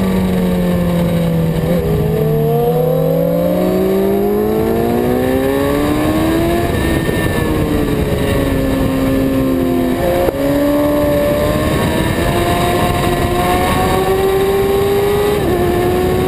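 Sport motorcycle engine heard from an onboard camera on a racetrack, with heavy wind rush over the microphone. The engine note falls as the bike slows for a corner, then climbs under acceleration, dropping back twice as it shifts up a gear and climbing again.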